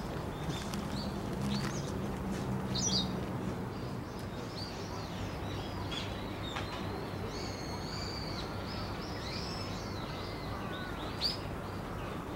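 Small birds chirping and calling, with scattered short high chirps and a longer warbling phrase about halfway through, over a steady low background hum.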